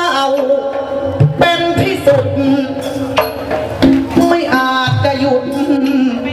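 Amplified likay singing: a performer's voice holding long, ornamented notes through a microphone and PA, over live Thai drums struck every second or so.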